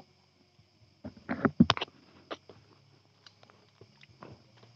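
A quick cluster of knocks and scrapes against a small wooden boat about a second in, then scattered light taps and clicks, over a steady high chirring of night insects.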